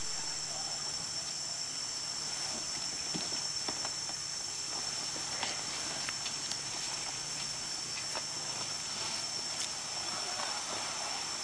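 Insects keep up a steady high-pitched buzzing chorus. Light rustles and clicks come and go as a red kayak is handled and dragged through grass.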